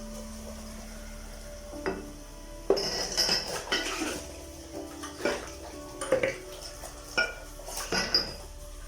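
Dishes and cutlery clinking and clattering as they are handled: a busy run of knocks and short rings about three seconds in, then single clinks roughly once a second.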